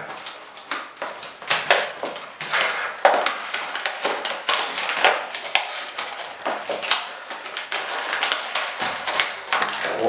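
Clear plastic packaging crinkling and crackling as it is handled and pulled open, in a dense run of irregular crackles.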